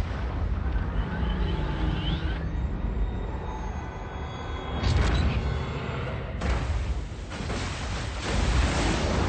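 Film sound effects of large explosions and falling debris: a deep continuous rumble, with sudden blasts about five seconds in and again about six and a half and eight and a half seconds in.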